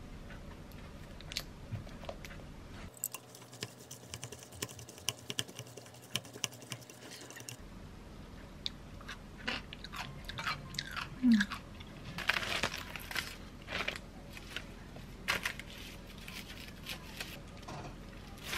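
Wooden chopsticks tossing julienned cucumber with mayonnaise and sriracha in a glass bowl: a run of uneven small clicks and wet scrapes, busier and louder in the second half.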